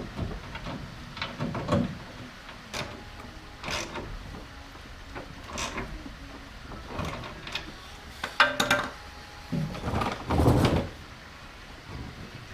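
Hand tools and metal parts knocking and clinking at irregular intervals while front suspension parts are bolted back onto the car, with a brief metallic ring a little past the middle and a louder clatter near the end.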